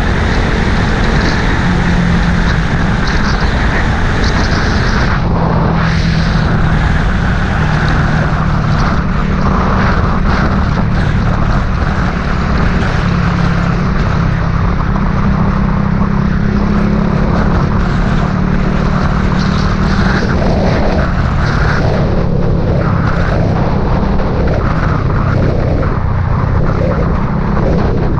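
A vehicle engine drones steadily under heavy wind rush, as heard while riding along a road.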